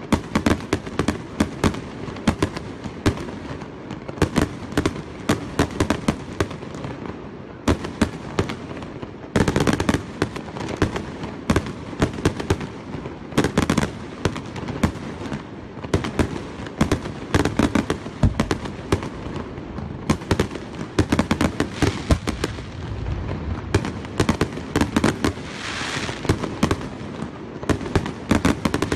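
Aerial fireworks shells bursting in rapid succession: a dense run of sharp bangs, several a second, over a continuous crackle.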